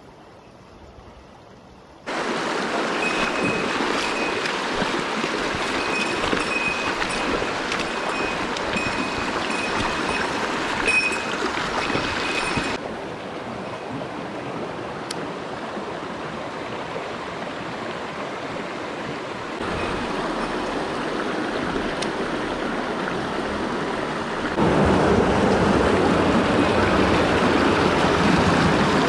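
Mountain stream water rushing, a steady noise that jumps suddenly in level several times as the shots change, faint only for the first two seconds.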